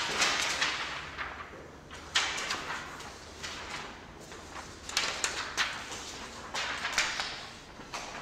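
Loose sheets of printer paper rustling and sliding over a hard floor in a series of short swishes, one every second or so.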